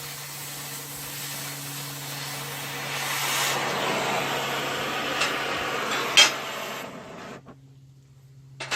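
MIG welder arc sizzling and crackling steadily as a bead is laid on the steel tank, with a few sharper pops, then cutting off about seven seconds in. A steady low hum runs underneath.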